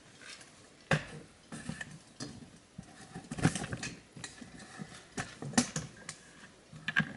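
Irregular sharp knocks and clinks, a few with a short ring. The loudest come about a second in, halfway through and near the end.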